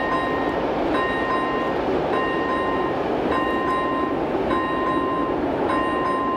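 A level crossing's electronic warning bell ringing in a steady rhythm, about one ring every 1.2 seconds, each ring a bright tone that holds for most of the gap before the next. Beneath it is a steady rumbling noise from a freight train approaching on the line.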